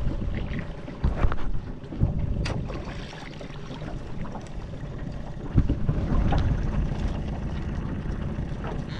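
Wind rumbling on the microphone, with several sharp knocks as a crab pot is hauled up by hand on its rope against the side of an aluminium boat.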